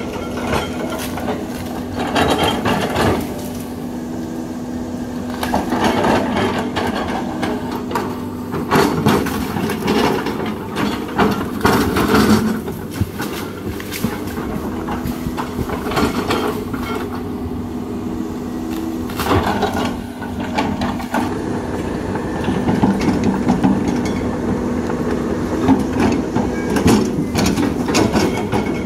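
CAT 320D hydraulic excavator's diesel engine running steadily, with irregular bursts of cracking and crunching as the bucket pushes through felled tree trunks, branches and soil.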